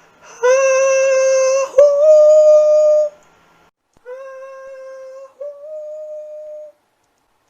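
Two long held notes, sung or hummed, the second a small step higher. The same pair then comes again more quietly.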